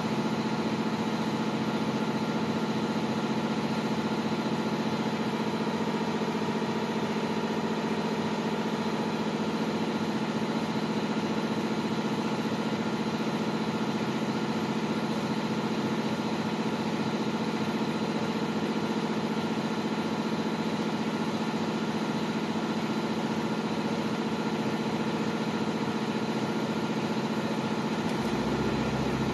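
CNC hot-wire EPS foam cutter running, its motor-driven axes moving the wire carriage along the ball screw at a constant pace: a steady mechanical hum made of several fixed tones.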